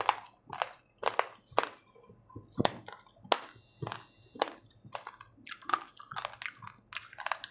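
A person chewing dry, uncooked white rice: a run of sharp, irregular crunches, about one to two a second, as the hard grains crack between the teeth.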